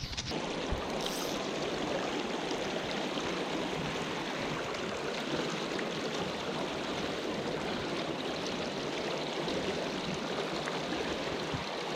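Creek water rushing steadily over a riffle, an even hiss of moving water.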